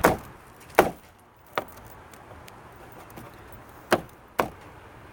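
Sharp knocks as the inner door panel of a Dodge Ram pickup is pushed and struck back into place on the door: three about a second apart, a pause, then two more close together.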